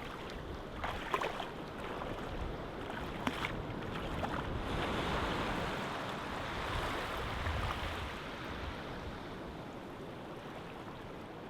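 Surf washing onto a beach, a steady rush that swells midway and eases off toward the end, with a few sharp clicks in the first few seconds.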